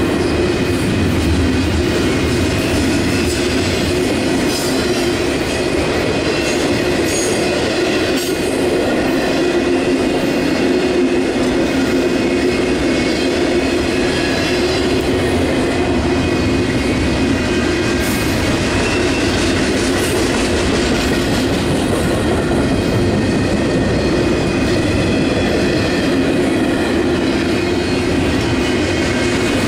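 Double-stack intermodal well cars of a freight train rolling past close by: a steady rumble of steel wheels on rail with a clickety-clack over the joints, and a sustained faint squeal from the wheels.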